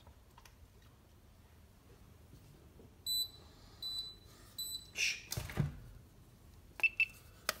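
Pen-type non-contact voltage tester beeping: three short high beeps a few seconds in, a brief clunk of handling, then two short lower beeps near the end as it starts to pick up voltage on the spur's wiring.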